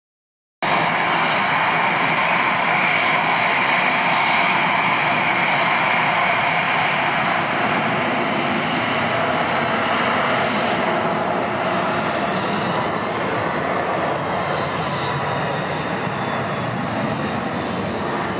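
Jet airliner engines running at the airport, a steady loud rush that starts abruptly about half a second in and eases slowly over the second half.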